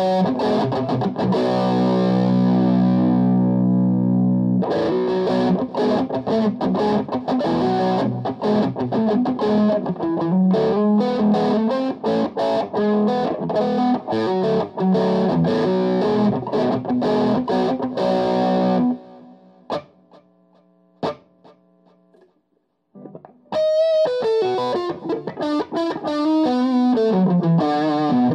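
Electric guitar played through a Rhodes Artemis amp with a TC Electronic G Major 2 effects processor in its loop, playing distorted, fast-picked riffs. About 19 seconds in the riffing stops and a chord rings out and fades. Near 23 seconds a lead line starts, falling in pitch.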